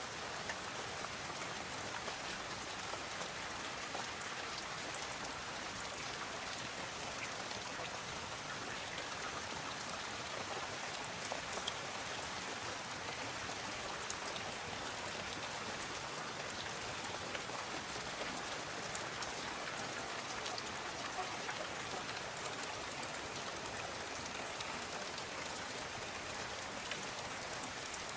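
Steady rainfall with many individual drops pattering on surfaces, an even hiss of rain with small drop ticks throughout.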